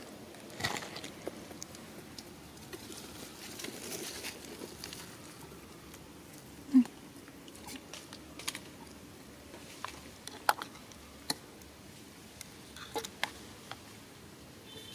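Scattered crackles and rustles of dry leaf litter as long-tailed macaques shift and move about on it, with one brief low blip about seven seconds in that stands out above the rest.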